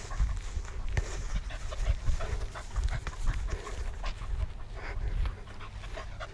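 A dog panting rapidly from running and play, many quick breaths a second, over a low rumble on the microphone.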